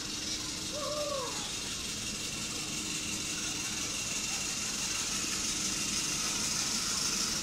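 Miniature railway train approaching along its track with passengers aboard, its running noise growing slowly louder.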